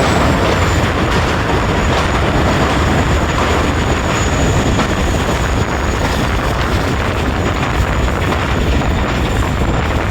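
Passenger train running on the rails: a steady, loud rumble and rattle of the carriages, with a thin high whine above it that slowly drops in pitch.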